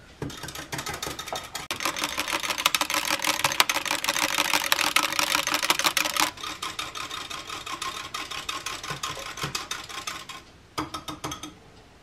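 A utensil stirring milk replacer formula fast in a glass measuring cup, clicking rapidly against the glass. It is loudest in the first half, goes softer about six seconds in, and stops near the end after a few last taps.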